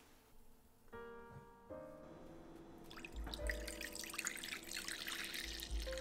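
Soft background piano music; from about three seconds in, liquid pours and splashes into a bowl, with two low bumps.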